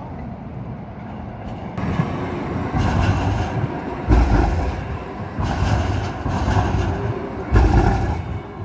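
MAX light rail train passing close by, its wheels rumbling and clattering on the track, with about five loud clunks at uneven spacing.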